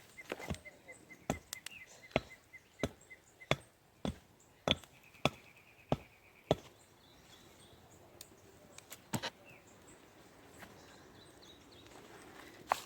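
Chopping on wood: a run of sharp, even strikes, somewhat under two a second, that stops about six and a half seconds in, with one more strike later. A bird chirps quickly and repeatedly during the first few seconds.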